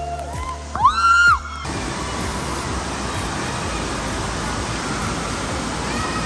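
A short loud scream from a waterslide rider over music, cut off about a second and a half in. Then comes a steady rush of water noise from an indoor water park's lazy river and its water features.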